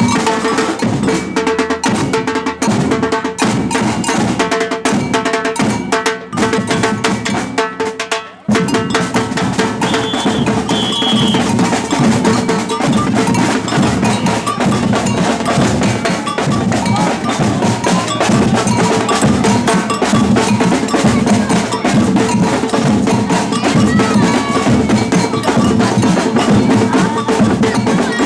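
Batucada percussion ensemble playing a fast samba rhythm, with a ringing metal bell part over the drums. The low drums drop out for a couple of seconds about six seconds in, then the full group comes back in together.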